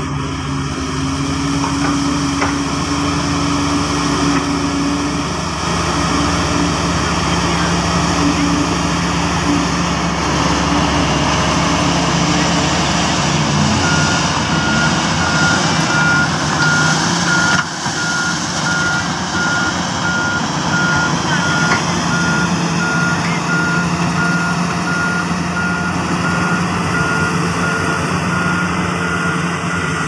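Sakai SV526DF padfoot vibratory roller's diesel engine running steadily. About halfway through, a reversing alarm starts beeping at an even pace.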